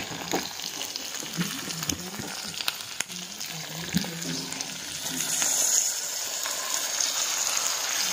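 Chicken pieces sizzling and frying in a wok over a wood fire, with small crackles. About four seconds in, a wet spice paste is poured onto the hot meat and the sizzle grows louder.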